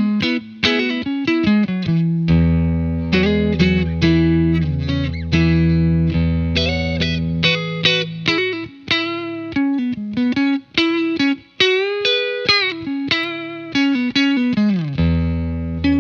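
Fender Stratocaster with Custom Shop '50s Fat Strat single-coil pickups, played clean on the neck pickup through a Bogner Shiva EL34 tube amp head and 2x12 cabinet. It plays a picked passage of held bass notes under quicker single notes and chord tones, with a few bent notes.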